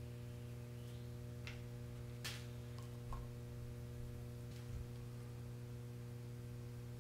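A steady low hum in the workshop, with a few faint clicks and taps as a small syringe puts suspension oil into the fork lowers.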